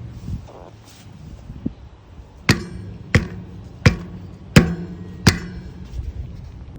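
RockShox Pike suspension fork giving five sharp pops at an even pace, about one every 0.7 s, with a couple of fainter clicks before them, as the fork is worked. The owner suspects, from others' reports, that the upper stanchions are coming loose from the crown.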